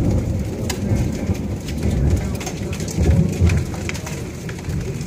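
Hail and heavy rain pelting a wooden deck: a dense patter of sharp ticks from the stones striking, over a continuous low rumble.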